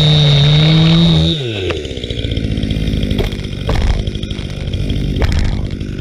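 Stihl two-stroke chainsaw running at full throttle in a cut, then dropping to idle about a second in. It idles on while cut rounds of wood are lifted off the log, with a few sharp knocks of wood.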